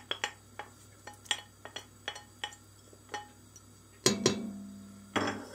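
Wooden spoon scraping and tapping chopped onion off a ceramic plate into a stainless-steel pot, a run of light clicks. About four seconds in, a louder knock sets the pot ringing briefly, and another knock follows near the end.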